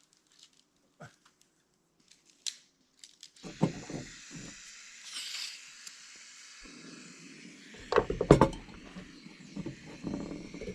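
Camp cookware and utensils knocking and clattering as breakfast is prepared, with a steady hiss that starts about three and a half seconds in. The loudest clatter comes near the end.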